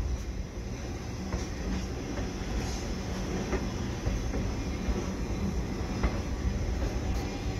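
A railroad caboose rolling slowly along a light, weed-grown track: a steady low rumble of wheels on rail, with occasional faint clicks.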